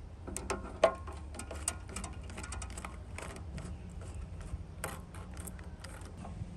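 Screwdriver turning the worm screw of a hose clamp to loosen it from an air-filter intake, making a run of small, irregular clicks over a low steady hum.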